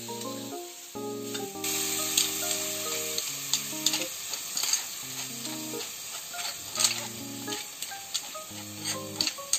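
Vegetables and spices for sambar sizzling in hot oil in a pan while being stirred, with the spoon clicking against the pan. The sizzle gets louder about a second and a half in. Soft background music with a slow melody plays underneath.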